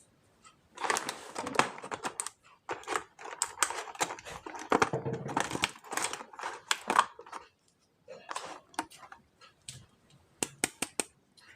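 Rapid, irregular clicking, tapping and rustling of plastic toys and packaging being handled during an unboxing, in dense runs with short gaps.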